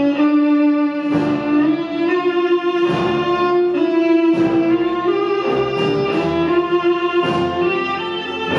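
Solo violin playing a slow melody in long held notes, over an accompaniment that strikes a chord every second or two.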